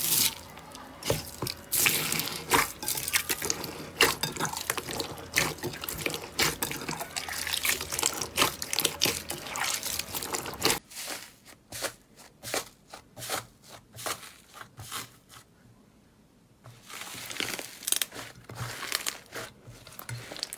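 Slime being squeezed and pressed by hand, making dense wet clicks and crackles. The clicks thin out about halfway through, with a short lull about three quarters in before the crackling picks up again.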